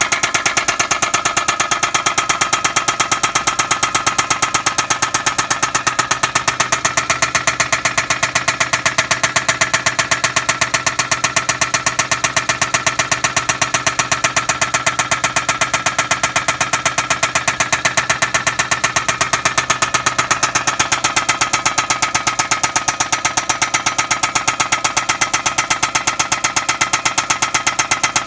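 Suzuki K6A three-cylinder engine running steadily at idle with a rapid, even knock. The knock is not cured by tappet adjustment, and the owner takes it for worn crankshaft bearings.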